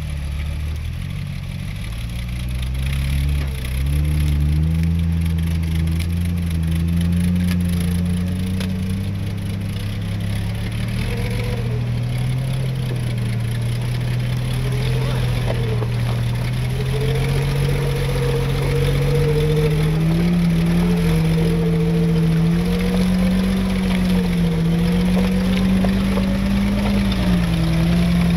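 A vehicle engine pulling under load in low gear. Its pitch climbs slowly and wavers as the revs rise.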